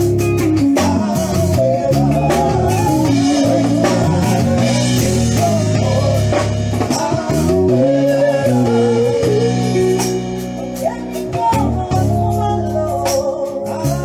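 A live band with electric guitars and drums playing while a woman sings into a microphone over the stage loudspeakers, during a sound check reportedly marred by poor sound.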